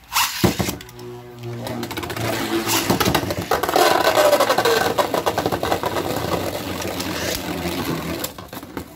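Beyblade X spinning tops launched into a clear plastic stadium, then whirring and clacking as they race around and collide, with a falling whine in the middle. Hellscythe on its tapered bit runs too wildly around the stadium.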